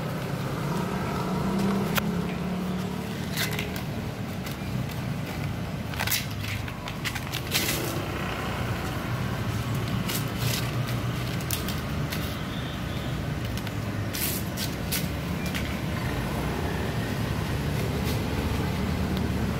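Steady low hum of street traffic, with scattered sharp clicks and light scrapes over it.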